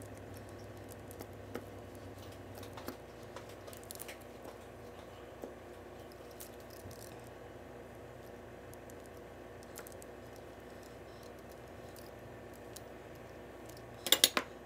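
Light, scattered ticks of a knife tip tapping through pie dough onto the parchment-lined surface as slits are cut, over a faint steady hum. A quick cluster of sharp clicks comes near the end.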